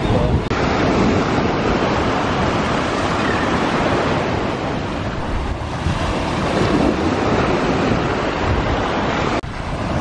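Small waves breaking and washing up over sand at the shoreline, a continuous foaming surf, with wind rumbling on the microphone. The sound drops out briefly twice, about half a second in and near the end.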